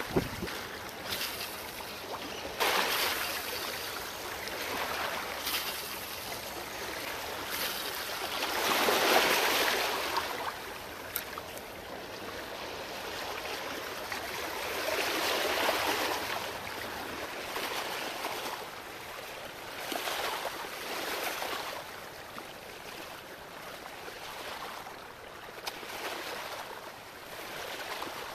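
Small sea waves washing and lapping against shoreline rocks, the wash swelling and fading several times.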